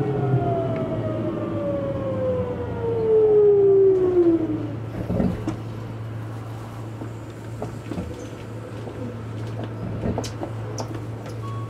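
Keio Series 8000 train's GTO-thyristor VVVF inverter whining in several tones that fall steadily in pitch as the train slows for the Chōfu stop, fading out about five seconds in. A steady low hum and scattered clicks follow, as heard from inside the car.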